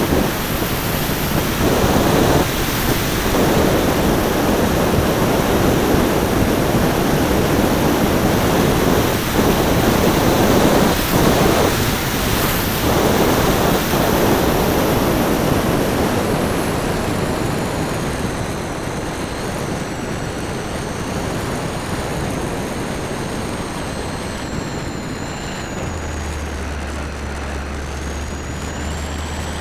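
Wind rushing over a wing-mounted camera on a flying model Transall C-160, with the high whine of its propeller motors. About two-thirds of the way through the whine drops in pitch and the rush gets a little quieter, then the whine rises again near the end.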